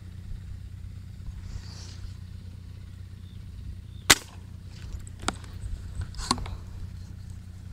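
A fishing slingshot (tiksay) is shot, with one sharp, loud snap about four seconds in. Two fainter clicks follow over the next two seconds, over a steady low hum.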